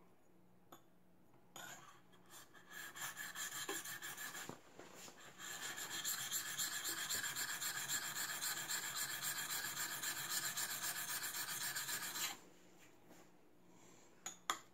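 Steel block plane iron rubbed back and forth on a wet coarse sharpening plate to flatten its back. A few separate strokes come first, then a fast, steady run of scraping for several seconds that stops abruptly, followed by one small click near the end.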